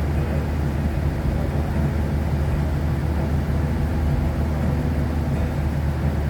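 A steady low rumble from a running engine or machine, holding an even pitch with no sudden knocks or changes.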